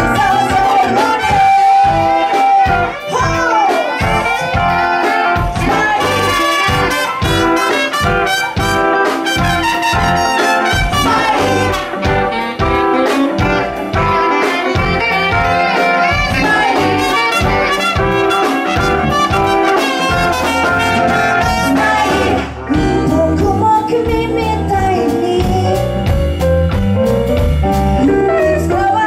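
Live band playing an upbeat jazzy song: drums and electric guitar with a horn section of trumpet and saxophone, and singing. The band drops out briefly about three-quarters of the way through, then comes back with a heavier bass.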